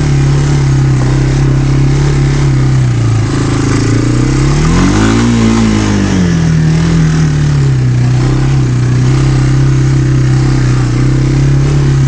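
Mule utility vehicle's engine running steadily under way, revving up about four seconds in and dropping back to its steady note a couple of seconds later.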